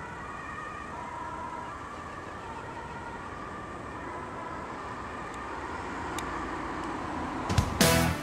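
Dutch ambulance siren with a warbling tone, fading into the distance as the ambulance drives away, over steady road-traffic noise. Music starts loudly near the end.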